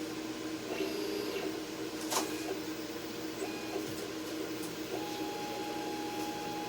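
Electronic cutting machine running as it cuts, its motors whirring in steady tones that shift in pitch, with a sharp click about two seconds in.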